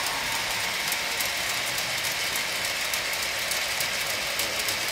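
Bachmann Lyn 2-4-2 G scale model locomotive running with its gear drive working, pulling a long rake of side-tipper wagons that roll along the track with frequent irregular clicks.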